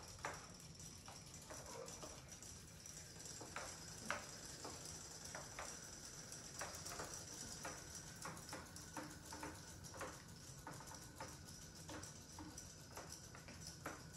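Faint, irregular light ticking and tapping from several battery-powered robotic fish toys swimming in a bathtub of water.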